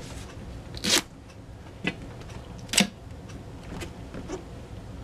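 Handling of a motorcycle tyre and wheel on a towel-covered bench: four short, sharp scuffs about a second apart, the loudest at about one second and just before three seconds.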